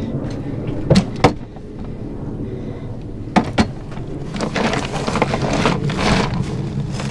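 Sharp clicks as a plastic cooler is opened, then ice rattling and crunching from about four seconds in as a bonnethead shark is pushed down into the cooler's ice.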